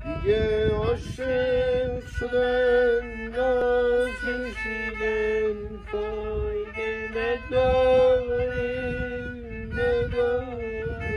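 Kamancheh, the Persian bowed spike fiddle, playing a slow melodic phrase of held notes joined by slides, opening with an upward glide.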